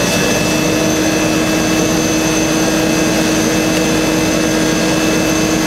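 Both Pratt & Whitney PT6A turboprop engines of a de Havilland Twin Otter running at idle just after start, heard inside the cockpit: a loud steady rush with a constant turbine whine. A lower steady hum sets in just after the start.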